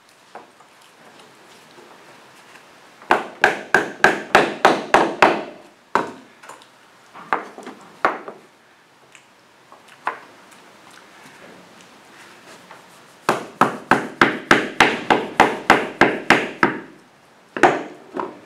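Hammer tapping a new wooden deck plank into place with light, quick blows, about four a second. A run of about nine strikes comes near the start, then a few single taps, then a longer run of about fifteen near the end.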